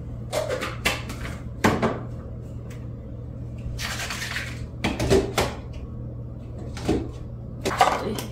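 Kitchen things being handled and set down on the counter: a series of separate knocks and clatters of dishes and plastic ice cube trays, loudest about two seconds in, about five seconds in and near the end. A steady low hum runs underneath.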